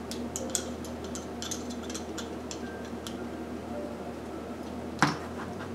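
Small metallic clicks and ticks of a hand driver working the screws of a model aircraft engine's carburetor as it is taken apart, with one sharper click about five seconds in, over a low steady hum.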